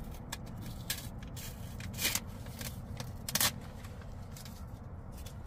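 Paper label being peeled and torn off a cardboard tube of refrigerated cinnamon roll dough, in a series of short papery rips, the strongest about two seconds in and about three and a half seconds in.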